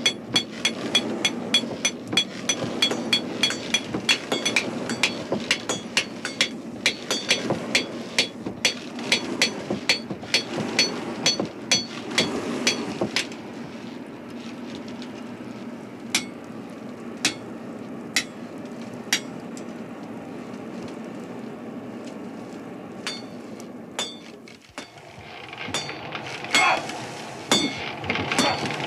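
Hand hammer striking a metal bar on an anvil, about three ringing blows a second. The hammering stops about 13 seconds in, leaving only a few scattered strikes, and more clanking starts again near the end.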